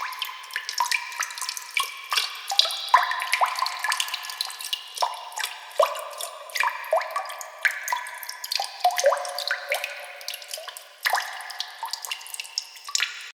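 Water drops falling into water in a quick, irregular patter, each drop a short pitched plink. It cuts off abruptly at the end.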